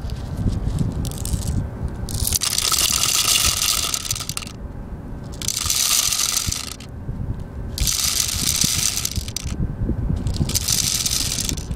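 Plastic 0.25 g airsoft BBs being poured into a metal drum magazine: a dense rattling rush of pellets. It comes in four pours of one to two seconds each, with short pauses between them.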